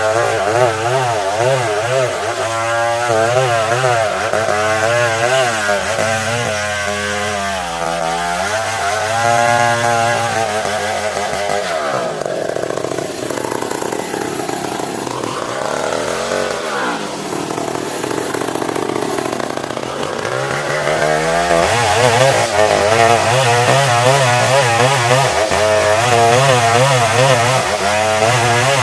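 Old Stihl 070 chainsaw's large two-stroke engine running hard while ripping a log into planks, its pitch wavering under load. For several seconds in the middle the engine note sinks and blurs, then it climbs back up and runs louder.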